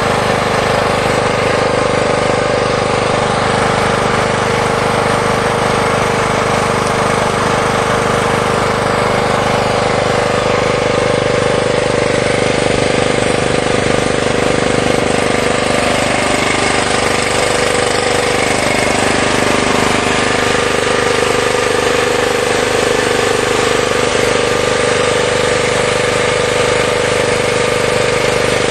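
A 12 hp generator's gasoline engine running steadily at a constant speed, fed gasoline vapour through a Pantone-style GEET vapor carburetor rather than its stock carburetor.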